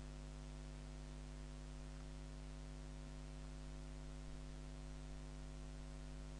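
Steady electrical mains hum with a faint hiss underneath: the recording's background noise, no other sound.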